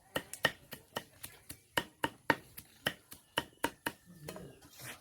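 A fast series of sharp taps or knocks, about three a second, which fade out about four seconds in.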